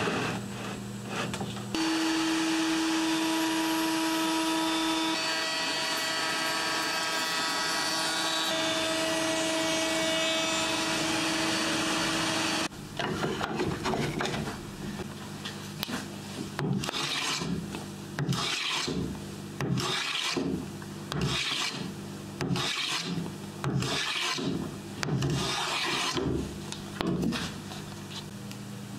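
A table-mounted router runs for about ten seconds with a steady whine as a board is fed past the bit, then cuts off suddenly. A metal hand plane then takes about a dozen short rasping strokes along the edge of a wooden board.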